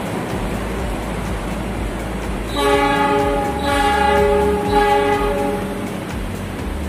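Diesel locomotive horn sounding one held chord of about three seconds, starting about two and a half seconds in, its upper notes swelling three times, over a steady rail rumble.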